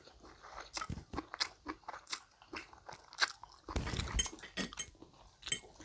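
Close-miked chewing and eating: irregular wet mouth clicks and smacks from someone eating a mouthful of pancit bihon rice noodles, with a fuller chewing sound about four seconds in.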